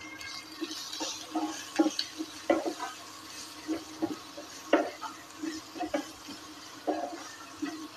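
A spatula stirring boiled baby potatoes in a nonstick frying pan: irregular scrapes and knocks against the pan as the potatoes are turned through oil and spices, over a faint sizzle.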